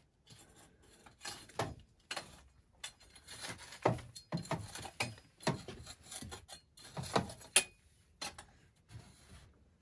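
Small hand shovel scraping and scooping at dirt and gravel around a sewer pipe, in a string of irregular scrapes and sharp knocks.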